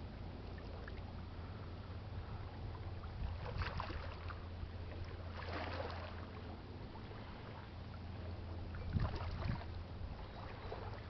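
Low, steady drone of a passing lake freighter's engines heard across the water, with a few brief rushes of noise, about four, six and nine seconds in.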